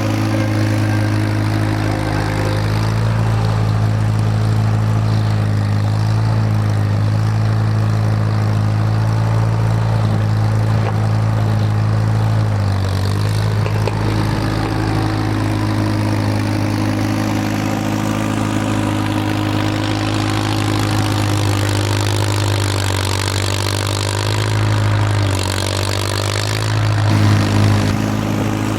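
Farmall M tractor's four-cylinder engine running steadily, pushing snow with its loader bucket; its engine speed sags briefly about twelve seconds in and again near the end.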